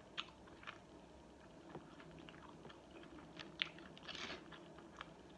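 Quiet close-up chewing of a fried chicken sandwich: scattered wet mouth clicks and smacks, with a brief noisier crunch about four seconds in.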